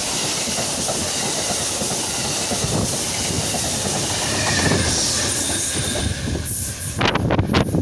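Amtrak Downeaster passenger train passing close by at speed: the steady rumble and clatter of its steel wheels on the rails, with the trailing GE P42DC locomotive going by about halfway through. A run of sharp clicks near the end.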